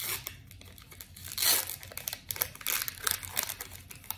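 Foil wrapper of a Pokémon trading card booster pack being torn open and crinkled by hand, with the loudest tear about a second and a half in, then irregular crackling as the cards are pulled out of the wrapper.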